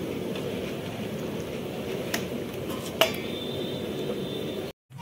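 Halwa being stirred in a large aluminium cooking pot with a long paddle: a steady low churning noise with two sharp metallic clinks of the paddle against the pot, about two and three seconds in.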